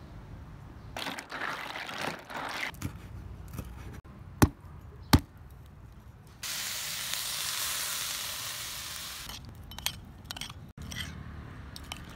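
Cooking sounds: two sharp cleaver chops into a trimmed young coconut, about two-thirds of a second apart, followed by a steady hiss lasting about three seconds and a few small clicks and scrapes near the end.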